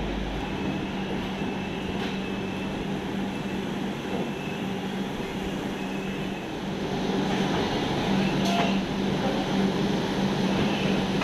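Passenger train running: a steady rumble with a constant low hum, growing a little louder about seven seconds in.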